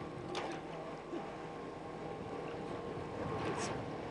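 Water splashing twice, near the start and near the end, as a carp is handled in a landing net at a boat's side, over the steady hum of a passing motorboat's engine.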